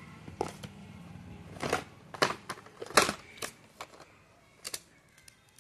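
Hands handling a smartphone's cardboard retail box and its paper-board inserts: a run of short rustles, scrapes and knocks, the loudest about three seconds in.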